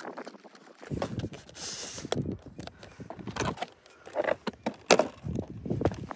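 Handling noise of a model plane's outer wing being slid onto its square wing spar and pressed against the centre wing: scattered light knocks, scrapes and rustles, with a sharper knock about five seconds in.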